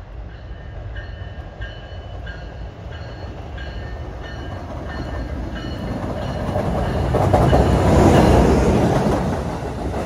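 A train passing: its rumble builds to a peak about eight seconds in and then starts to fade, while a bell rings steadily, about three strokes every two seconds.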